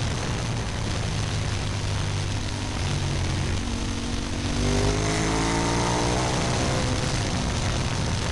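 Onboard sound of a KTM 990 Super Duke's V-twin engine under heavy wind rush. About halfway through, the engine note rises steadily as the bike drives hard out of a leaned-over bend.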